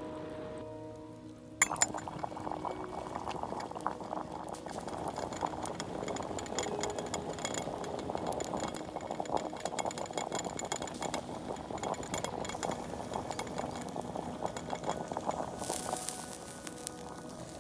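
Wood fire burning in a small metal twig stove under a pot, a dense run of irregular crackles and pops. A sharp snap about a second and a half in is the loudest sound.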